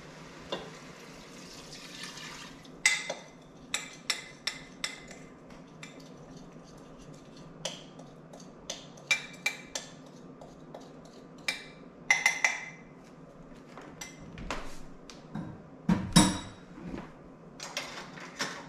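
Liquid mixture pouring into a stainless steel Instant Pot for about three seconds. Then comes a long run of sharp clinks and knocks of a measuring cup and utensil against the pot, with the loudest knocks about three, twelve and sixteen seconds in.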